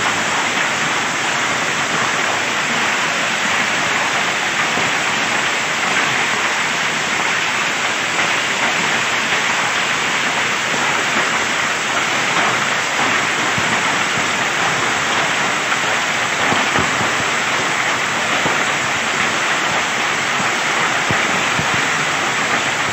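Hailstorm: hail falling heavily and hitting the ground in a dense, steady patter with no let-up.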